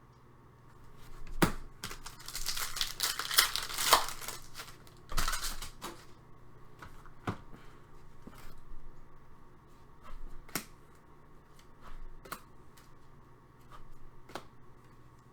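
Trading card pack wrapper being torn open with a crinkling, tearing rustle in the first few seconds, then the cards handled and set down with scattered sharp taps and clicks.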